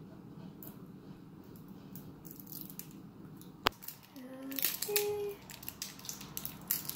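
Small plastic toy pieces being handled and pried at by fingers: faint scattered clicks and crinkling, with one sharp click a little past halfway and a busier burst of clicks shortly after.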